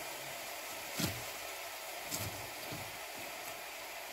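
A small kitchen knife dicing an onion on a wooden chopping board: a few scattered knocks of the blade on the board, the clearest about a second in, over a steady faint hiss.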